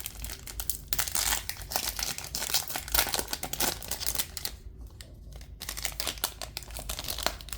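Foil wrapper of a Bowman Chrome trading card pack being torn open and crinkled in the hands. The crackling eases off about four and a half seconds in and picks up again near the end.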